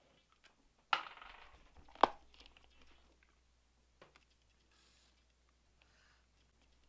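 A pen scratching faintly on a paper wall calendar, drawing X's over dates. Two sharp clicks come about one and two seconds in, and a smaller one about four seconds in.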